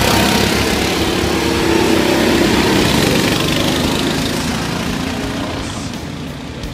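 Small go-kart engines running as two karts pass close by, then fading as the karts pull away around the track.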